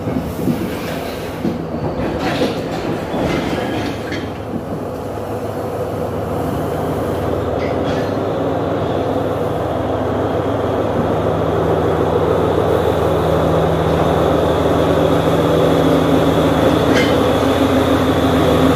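Class S10 diesel multiple unit rolling slowly past, its diesel engine running with a steady hum that grows louder as the power car comes alongside. A few clicks of wheels over rail joints come in the first few seconds.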